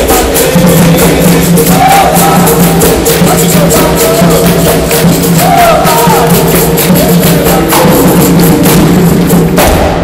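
Capoeira roda music: berimbaus, atabaque drum, pandeiro and hand-clapping keeping a steady rhythm, with voices singing over them. The playing cuts off near the end.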